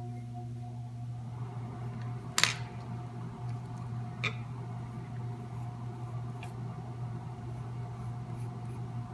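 Colored pencil rubbing softly on drawing paper over a steady low hum of room noise, with two sharp clicks about two and a half and four seconds in.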